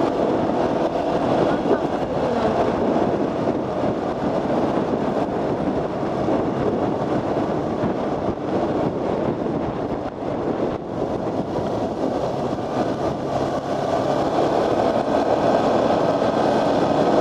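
Motorcycle running on the road at riding speed, its engine note mixed with steady wind rush on the microphone.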